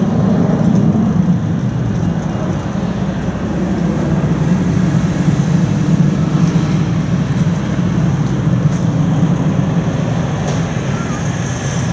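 Swiss Airbus A340-300's four CFM56 jet engines running at low thrust as the airliner taxis: a steady low rumble, with a faint high whine rising near the end.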